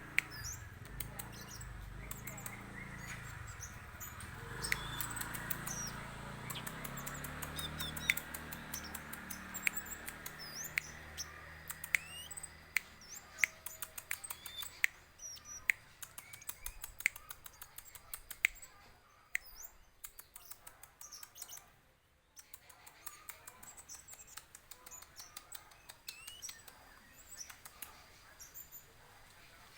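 Young bangsit songbird, about five months old, giving short, sharp chirps and clicks at an irregular pace. A low hum sits underneath for the first dozen seconds, then fades out.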